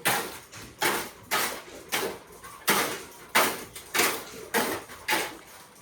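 Repeated strokes of a hand tool in construction work, about nine in a steady rhythm, each starting sharply and fading quickly.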